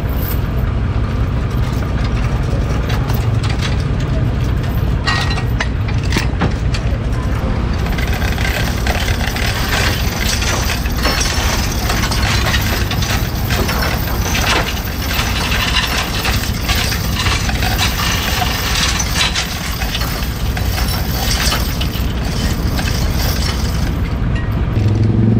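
Tow truck's engine running steadily while heavy steel chains clink and rattle as they are handled at the truck's winch and frame.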